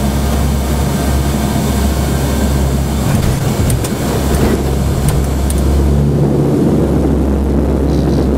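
The C-130H Hercules's four Allison T56 turboprop engines and propellers running with a steady low drone and hiss during the landing, just after the fifty-foot altitude callout. A few faint clicks come through midway, and near the end the hiss thins while the low drone grows stronger.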